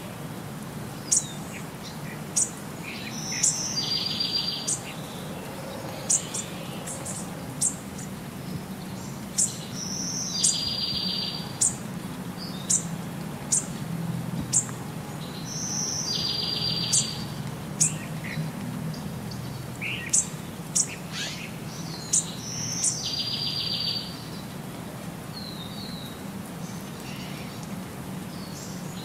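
Birdsong: many short, sharp high chirps, with a buzzy trilled call that comes back about every six seconds over a low steady background hum.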